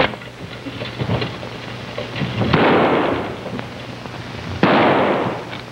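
Two gunshot sound effects about two seconds apart, each a sudden burst that dies away over most of a second.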